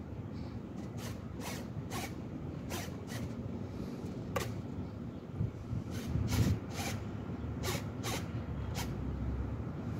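Short buzzing bursts from an RC model jet's control-surface servos moving the flaps and elevons, about a dozen at irregular intervals, over a low wind rumble.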